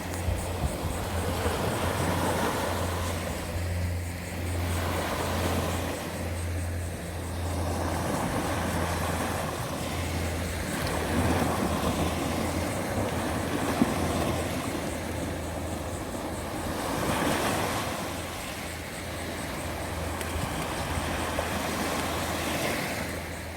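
Ocean surf washing in and breaking, the rush of water swelling and ebbing every few seconds over a steady low rumble.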